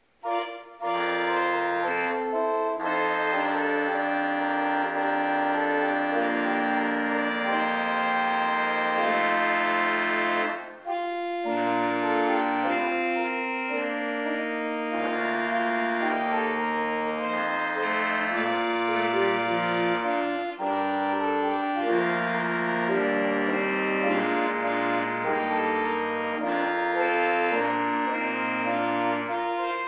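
Organ music playing slow, held chords, with a brief break about eleven seconds in.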